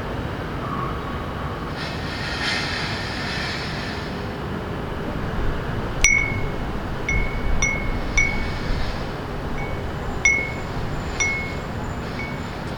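Small wind chime ringing in the breeze: a string of light, high strikes at one pitch, starting about halfway in, each ringing briefly. Under it runs the steady hum of city traffic, with a short hiss a couple of seconds in.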